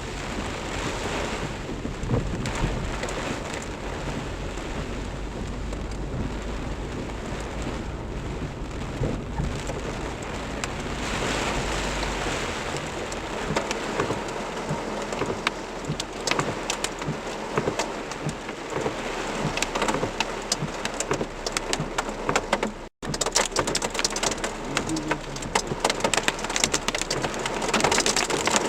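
Heavy rain and hail in a thunderstorm: a steady downpour with a low rumble of thunder through the first half, then many sharp ticks of hailstones striking, growing denser in the second half.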